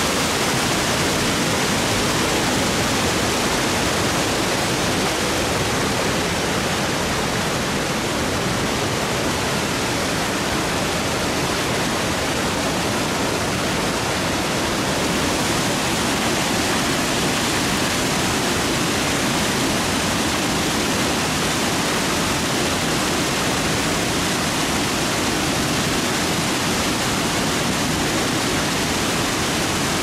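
Steady rush of a waterfall and white-water cascades, river water pouring over rock ledges close by.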